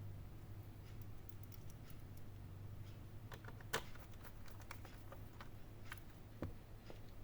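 Faint, scattered small clicks and taps from handling and fitting the plastic and metal parts of a laptop during reassembly, with one sharper click about halfway through and another near the end. A low, steady hum runs underneath.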